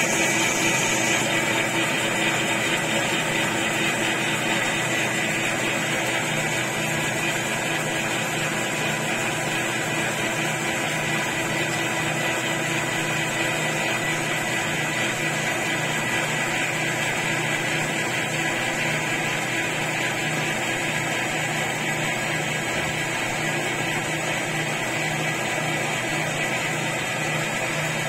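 Lathe running steadily with its carriage traversing the freshly reground bed ways under feed: an even mechanical hum with several constant tones.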